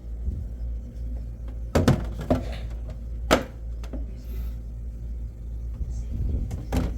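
A few sharp knocks and clunks of things being handled and set down, over a steady low hum.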